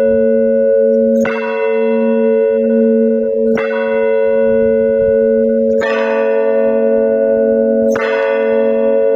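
Russian church bells in a bell tower ringing, struck about every two seconds. Between strikes the bells' low hum rings on and pulses.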